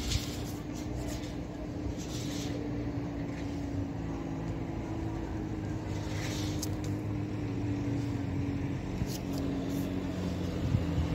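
A motor running steadily: a low hum with a held tone, with a couple of short hisses about two and six seconds in.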